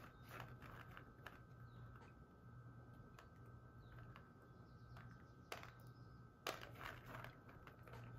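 Faint clicking and rattling of peas as fingers sift through them in a plastic colander, with a couple of louder clicks about five and a half and six and a half seconds in.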